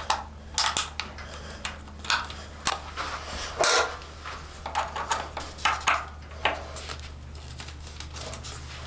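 Small metal clicks, taps and scrapes of hand tools working on a motorcycle's rear frame: an Allen key turning a bolt, and tools being handled against the frame and parts, over a faint steady low hum.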